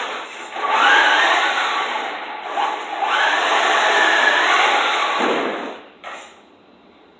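RC car motor running at speed, whining up in pitch as it accelerates twice, then fading away about six seconds in.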